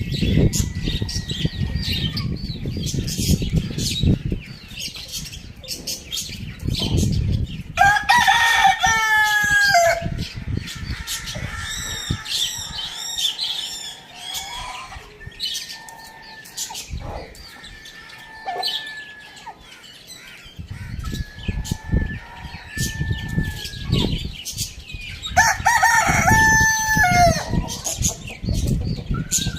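A rooster crows twice, about eight seconds in and again near the end, each crow about two seconds long with a falling end. Between the crows come shorter chicken calls, a high patterned bird call and scattered clicks, over bouts of low rumble.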